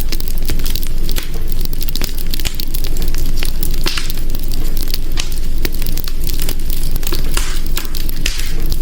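Wood fire crackling in a hearth: frequent sharp pops and snaps at irregular intervals over a steady low rumble of the burning.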